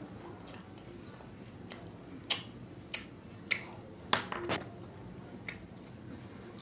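Close-miked chewing of butter naan with dal makhani: a run of sharp, wet mouth clicks and smacks, about five loud ones between two and five seconds in, with fainter ones around them.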